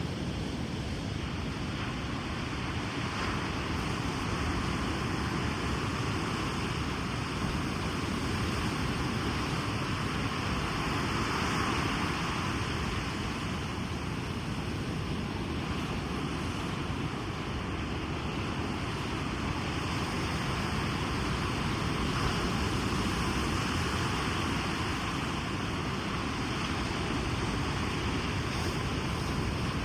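Ocean waves breaking on a beach: a steady wash of surf that swells and eases gently, with some wind.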